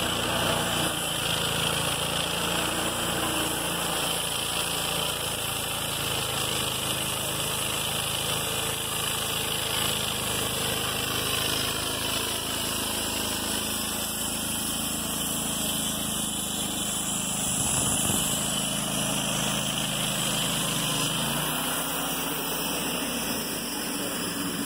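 Wood-Mizer LT35 portable band sawmill running steadily while working a 30-inch pine log. Its low hum thins out about halfway through and again near the end.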